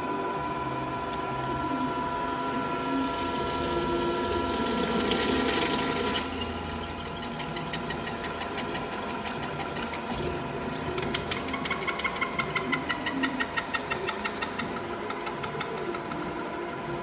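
CMA Rapid Drill RD-32 CN CNC drilling line running, its motors giving a steady hum and whine. A sharp click comes about six seconds in. A run of rapid ticking and rattle follows in the second half, with a whine that falls in pitch.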